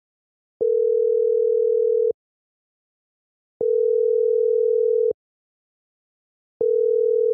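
Telephone ringback tone as an outgoing call rings through: a steady single-pitch tone sounding three times, each about a second and a half long with equal silent gaps between.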